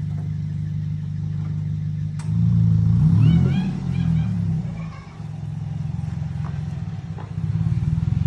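Vehicle engine running while driving off, its note rising louder and shifting in pitch a couple of seconds in, easing off about five seconds in, then picking up again near the end. A single click just before the first rise.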